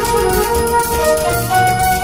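Instrumental background music: a held melody line that moves slowly in pitch over a low, steady pulse.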